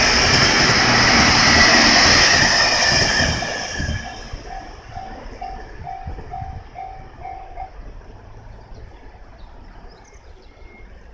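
A train running over a level crossing, loud at first and fading away after about three seconds as it leaves. The crossing's warning bell then rings clearly in even dings, about two a second, and stops a few seconds later once the train has cleared.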